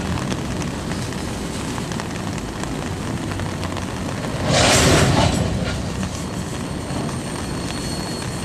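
Freight train of aluminium coal hopper cars rolling past, a steady rumble and rattle of wheels on rail, with a louder rush of noise lasting under a second about four and a half seconds in.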